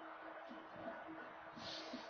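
Faint outdoor ambience of distant road traffic, with a thin steady hum and a short hiss near the end.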